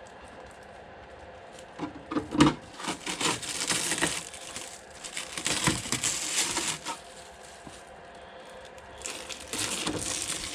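Plastic packaging crinkling and rustling in irregular bursts with sharp crackles, as it is handled during unboxing. It starts about two seconds in, pauses briefly, and picks up again near the end.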